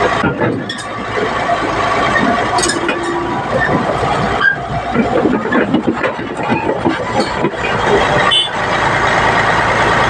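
Caterpillar D8T crawler bulldozer's diesel engine running under load as the dozer crawls down off a lowbed trailer's ramp, with a few sharp metallic clanks.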